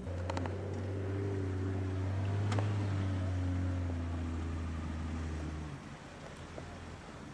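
Jeep Wrangler engine running steadily as the vehicle crawls down a steep sand slope. There is one sharp click about two and a half seconds in. The engine note drops away near the end.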